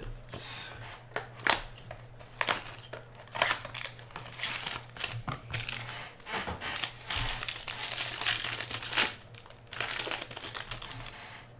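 Crinkling and tearing of plastic wrapping on a trading card box, with irregular sharp crackles and handling clicks as it is torn open.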